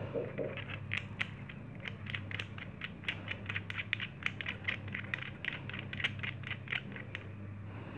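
Threaded metal fitting of a PCP airgun manometer being screwed by hand into the bottom of the chamber block: a run of light scraping clicks, about three or four a second, over a steady low hum.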